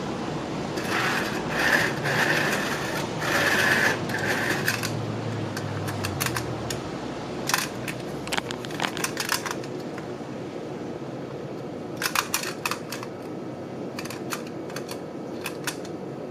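Tin-plate toy tram being handled: a few seconds of rubbing and scraping against the table and hand near the start, then scattered light metallic clicks and taps as it is picked up and turned over.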